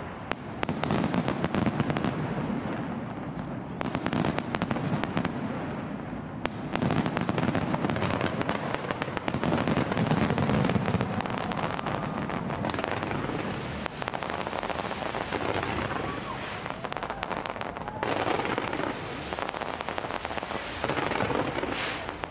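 A large fireworks display going off continuously: a dense crackle of many small bursts packed with sharp bangs, swelling and easing in waves without a break.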